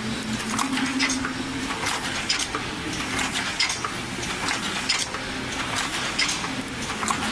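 Gear-box paper cup making machine running at production speed, about 50 cups a minute: a steady clatter of sharp mechanical clicks, several a second, over a low hum.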